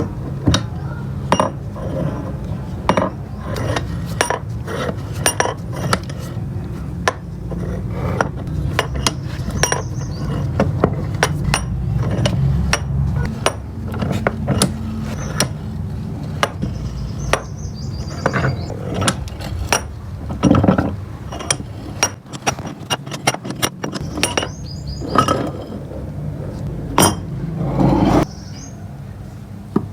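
Metal knocks and clinks at an irregular pace, some ringing briefly, as the parts of a rusty bench vise are worked on and handled. A steady low hum sits underneath and stops near the end.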